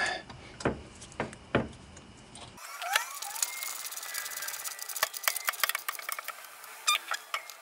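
Small metallic clicks and rattles of bolts, hardware and hand tools as a winch is bolted onto an ATV's front mounting bracket: a few separate clicks, then after a cut a quicker run of clicks and light knocks.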